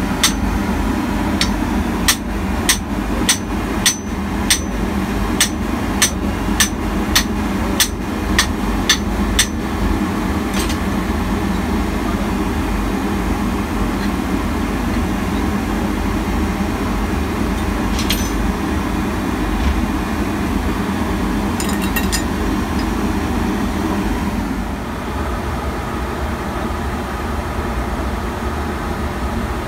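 Metal hammer blows during a fuel oil purifier overhaul: a run of about fifteen sharp strikes, nearly two a second, for the first ten seconds, then a few single knocks. Under them runs a steady machinery drone from a ship's engine room.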